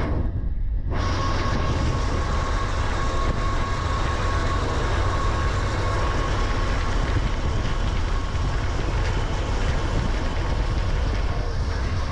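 Freight train rolling by, steel wheels running on the rails with a steady rumble and a thin, steady whine.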